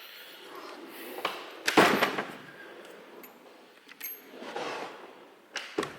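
Small-parts storage being handled: irregular rustling and knocking of plastic bins and loose parts, with a louder clatter about two seconds in and a few sharp clicks.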